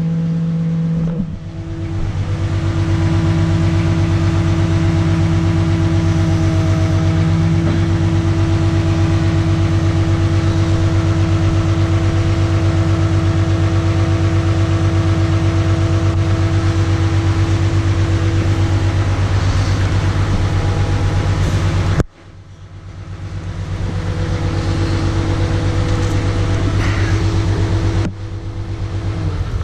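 Backhoe's diesel engine running steadily close up from the cab while it lifts a load on its hook. The engine note drops suddenly about a second in and twice more late on, then builds back up each time as the load on it changes.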